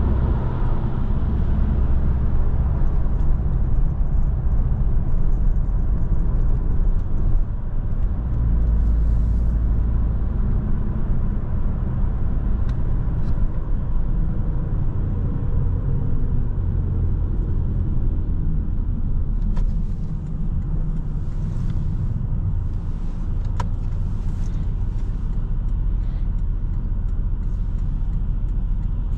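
Porsche 718 Boxster S's turbocharged flat-four engine running while the car is driven, a steady low rumble mixed with tyre and road noise.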